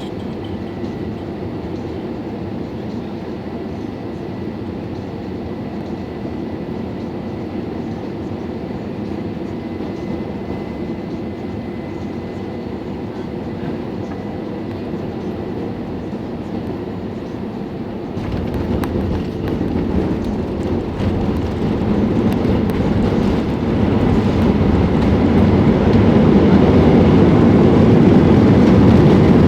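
Airbus A321-200 landing: a steady jet noise, then about two-thirds of the way through a sudden, heavier rumble sets in and keeps getting louder, as at touchdown and rollout on the runway.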